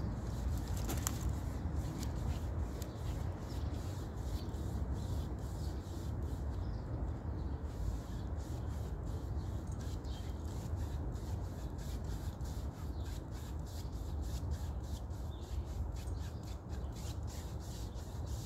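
Paintbrush scrubbing black paint onto a canvas in many short, quick rubbing strokes, over a steady low rumble.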